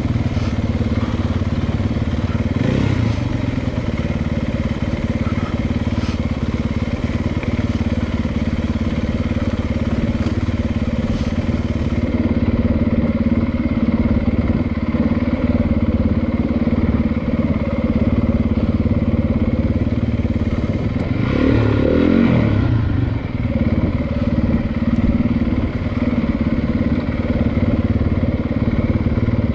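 Dirt bike engine running steadily, with a brief rise and fall in revs about three-quarters of the way through.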